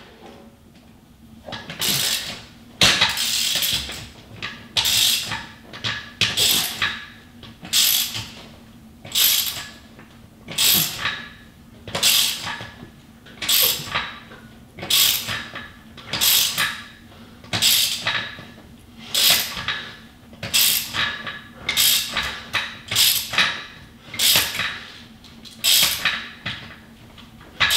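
Hand ratchet wrench worked back and forth in steady strokes, about one a second, its pawl clicking on each swing as it turns a long bolt that presses a rubber bushing into place.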